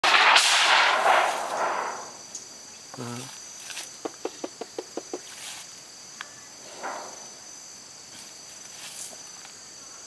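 A curved sheet-metal hive cover is lifted off a wooden stingless-bee hive box, a loud scraping rattle over the first two seconds, followed by softer rustles and knocks as the box is handled. A steady high insect drone, typical of cicadas or crickets, runs underneath.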